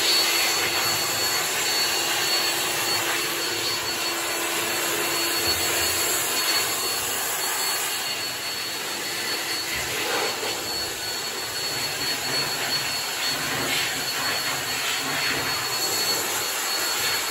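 Handheld air blower running steadily: a loud rushing blast of air with a thin, steady high whine, blowing leftover degreaser out of the cracks and drawer seams of a metal tool chest.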